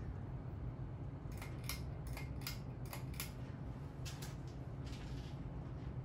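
1987 Hunter Biarritz ceiling fan switched to high speed, its motor running with a steady low hum. A string of light metallic clicks comes from about one to five seconds in, the pull chain rattling after being pulled.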